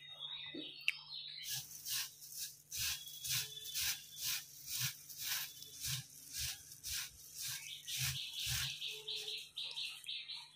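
A hand mixing dry puffed rice with mango pickle oil in a steel bowl: crisp rustling, crunching strokes at about two a second, starting a second and a half in. A low steady hum runs underneath.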